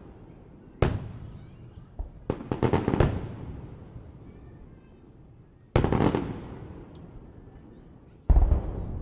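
Aerial fireworks bursting: a bang about a second in, a quick cluster of cracks around two to three seconds, then single booms near six and eight seconds, each trailing off in a long rolling echo.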